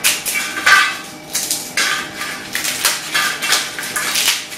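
Stale, dry roti being torn and snapped by hand into pieces: a string of irregular crisp cracks, about two a second, with pieces dropping onto a stainless steel plate.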